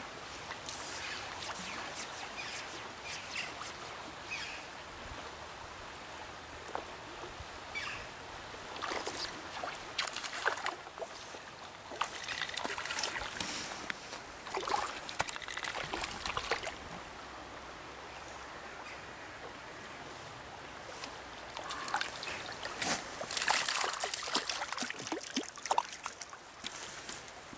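A river running steadily over shallow riffles, a continuous rushing hiss. Bursts of close rustling and crackling come over it, several in the middle and a longer spell near the end.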